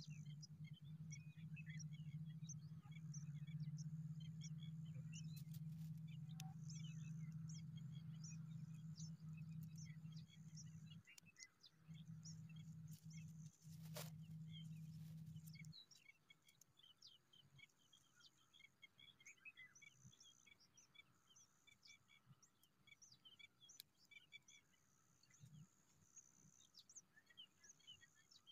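Faint, high bird chirps and tweets scattered throughout, over a low steady hum that stops about sixteen seconds in. One sharp click about halfway through.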